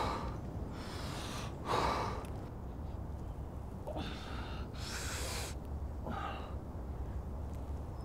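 A wounded man's ragged, pained breathing: a sharp gasp at the start, another about two seconds in, then three more heavy breaths. A steady low rumble runs underneath.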